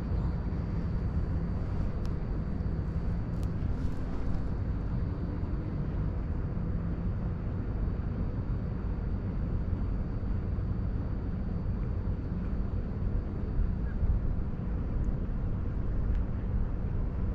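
Steady low outdoor rumble, even and unbroken, with a faint thin high tone.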